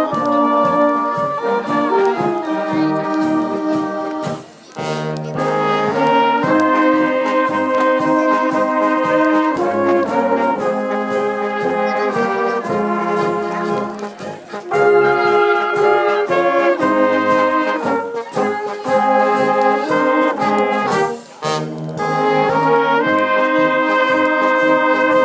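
Brass music: several brass instruments playing a tune together, the notes moving in steps, with short breaks between phrases about 5, 14 and 21 seconds in.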